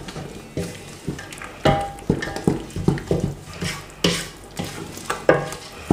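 Wooden spoon stirring thick ogbono soup in a stainless steel pot, knocking and scraping against the pot about twice a second.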